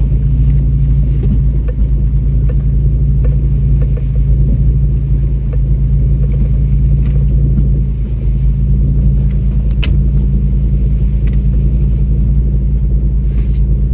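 Off-road truck's engine running at low, steady revs while crawling a rough trail, a continuous low rumble with scattered small knocks and clicks.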